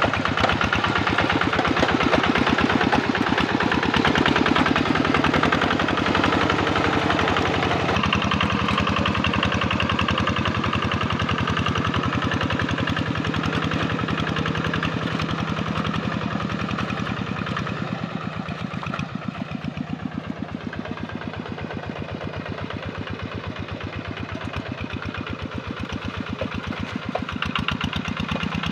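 Kubota RD85 single-cylinder diesel on a walk-behind hand tractor, chugging steadily under load while tilling a flooded rice paddy. It grows quieter a little past the middle as it moves away, then louder again near the end.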